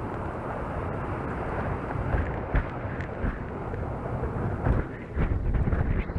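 Airflow buffeting a chase camera's microphone in flight behind a paraglider: a steady low wind rumble with a few louder gusts, about two and a half seconds in and again around five seconds.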